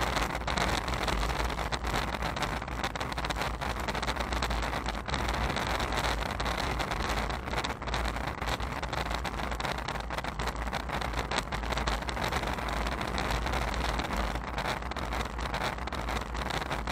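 Steady rushing wind and road noise on a moving action camera's microphone while cycling on asphalt, with a deep rumble underneath and small irregular knocks.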